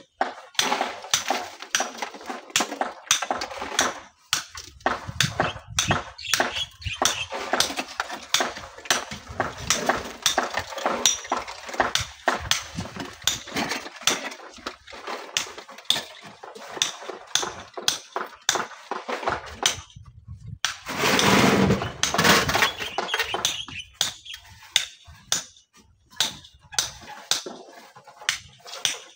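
Rocks and gravel clinking and knocking against each other as they are picked up by hand, shovelled and tossed into a steel wheelbarrow and onto the pile. About two-thirds of the way through comes a longer, louder rush of tumbling stones.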